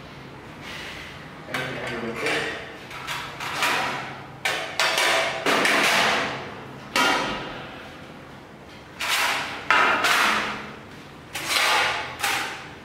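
Stainless steel surgical instruments clinking and clattering against a metal tray as they are picked up and set down: a string of separate, irregularly spaced metallic knocks, each with a short ringing tail.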